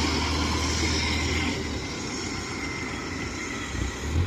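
Engine of a rice-hauling cart loaded with sacks running steadily under load while the cart is bogged in a hole in the paddy soil, trying to pull itself out.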